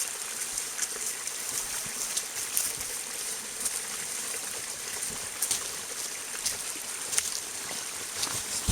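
Small spring-fed stream trickling and running steadily, with scattered faint clicks.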